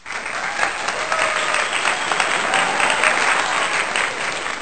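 Crowd applause: dense, many-handed clapping that starts suddenly and carries on steadily.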